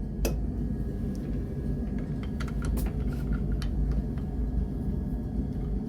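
Small metal parts of a lathe tailstock clicking and tapping as they are handled, with a cluster of light ticks about two to four seconds in, over a steady low rumble.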